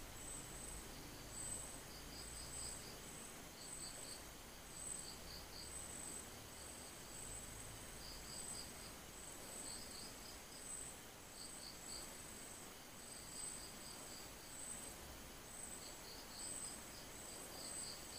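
Faint insects chirping: a high chirp repeating steadily less than a second apart, with short trills of three to five quick notes every second or two.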